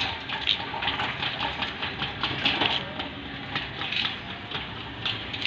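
Painted steel folding gate being pushed along on its greased wheels: a steady rolling rumble with light rattling clicks.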